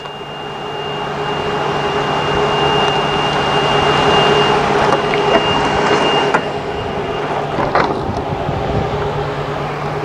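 Outdoor background noise: a steady low hum under a rushing noise that builds over the first few seconds. A thin high whine fades out about two-thirds of the way through, and there are a few light clicks and knocks.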